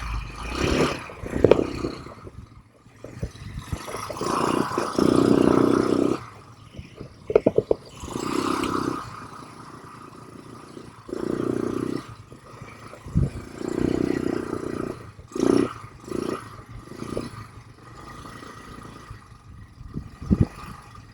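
ATV engine revving in repeated bursts of a second or two, with knocks, clatter and scraping as it rides over rough ground.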